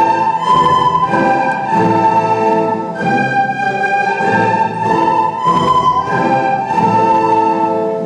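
A children's recorder ensemble playing a melody together in unison, each note held for about half a second to a second.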